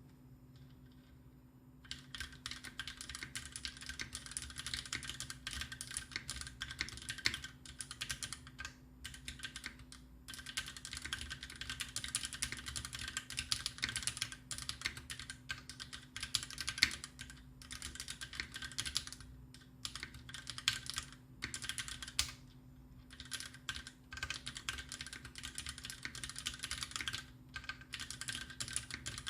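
Fast typing on a custom Taichi TKL mechanical keyboard with lubed Greetech Black linear switches and GMK Cherry-profile keycaps: a dense run of key clacks that starts about two seconds in, broken by a few short pauses.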